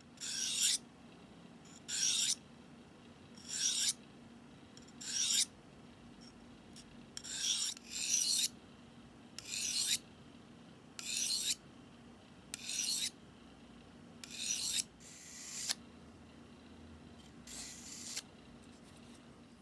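A knife blade drawn through a Victorinox pocket knife sharpener, about a dozen separate rasping strokes roughly every second and a half, each growing louder as the blade is pulled through. The last stroke is fainter.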